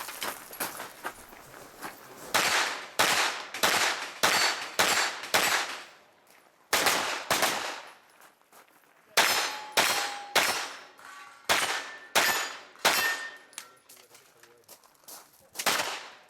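Pistol caliber carbine firing a string of shots in quick runs with short pauses, engaging targets on a match stage. Some shots are followed by the brief metallic ring of steel targets being hit.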